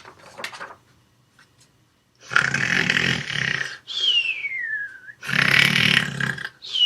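Comic cartoon-style snoring, twice: a long rasping snore, each time followed by a whistle that falls in pitch.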